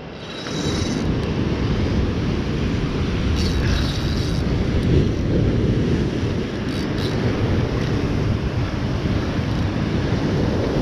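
Wind buffeting the camera microphone over surf breaking against rocks, a steady low rumble.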